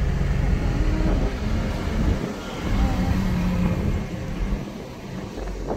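A moving car heard from inside its cabin: a steady low rumble of engine and tyre noise on the road.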